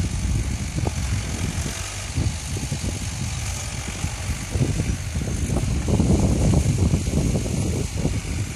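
Zetor 5718 tractor's diesel engine running steadily as it pulls a reversible plough through the soil, loudest a little after halfway as it passes close by.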